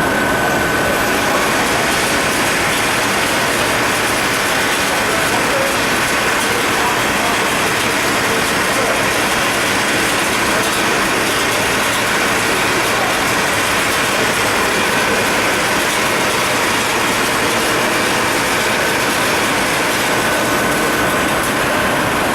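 Powerskinner MSA 5120 LS4 sleeve machine running, a dense, steady mechanical clatter with a thin high whine over it.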